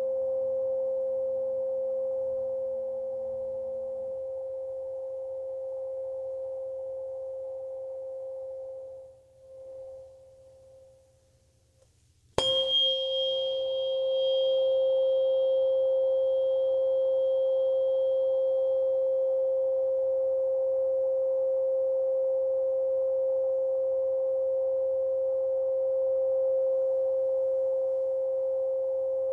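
Solfeggio tuning fork ringing a steady pure tone that slowly dies away almost to nothing. About twelve seconds in it is struck again with a sharp metallic click and a brief high overtone, then rings on loudly at the same pitch.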